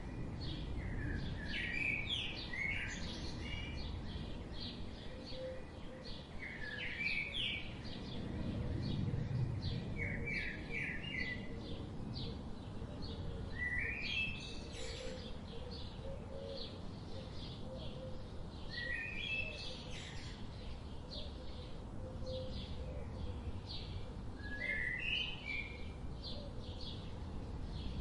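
Wild birdsong: a bird repeats a short phrase of quick, stepped rising notes about every four to five seconds, with many short, faint chirps from other birds throughout and a steady low rumble underneath.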